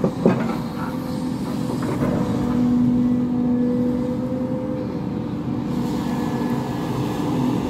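SDLG tracked hydraulic excavator's diesel engine running steadily as the machine swings and lowers its bucket. A short knock comes just after the start. From about two seconds in the engine hum grows louder under load, then eases off near five seconds.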